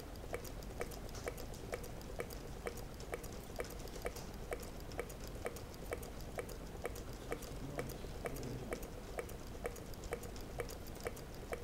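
Meccano-built Stirling engine running, its mechanism clicking in a steady, even rhythm of about two to three clicks a second.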